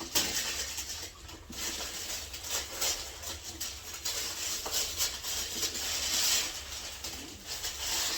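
Wrapping paper rustling and tearing as a Christmas present is unwrapped, in uneven swells.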